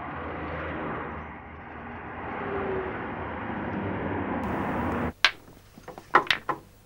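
A car driving, heard as a steady rushing noise with a low hum, which cuts off abruptly about five seconds in. A few sharp clicks follow near the end.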